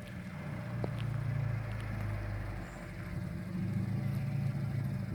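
Toyota GT86 (Scion FR-S) flat-four engine running with a low drone that swells about a second in, eases near the middle and swells again.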